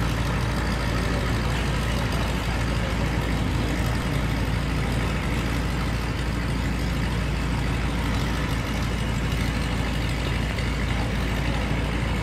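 Vintage biplane's piston engine running at low, taxiing power with the propeller turning, a steady low drone with no change in pitch.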